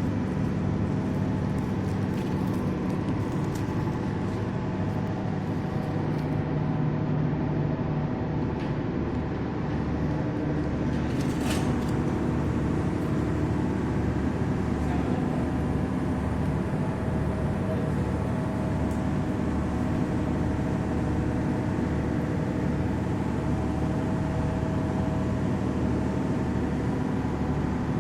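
Ship's diesel engine running steadily, with an even pulsing beat. One brief sharp hissing noise comes about eleven seconds in.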